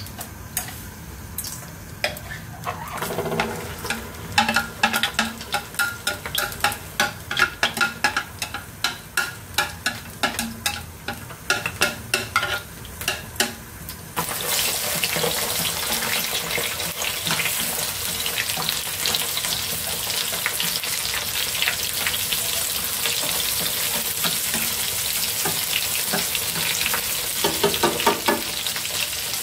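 Irregular sharp clicks and pops come from the frying pan while the oil heats. About halfway through, the sound jumps to a loud, steady sizzle of sliced meat with garlic and chilli frying in hot oil. Near the end a wooden spatula stirs the meat with a few clicks.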